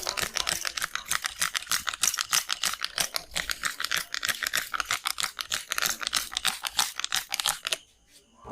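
A barber's hands striking rapidly in a percussive massage, making a fast, uneven run of sharp claps and slaps, several a second, that stops suddenly near the end.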